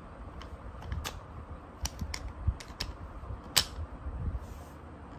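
Glock 26 pistol being reassembled: its metal slide is worked back onto the polymer frame over the recoil spring, making a series of sharp clicks, the loudest about three and a half seconds in.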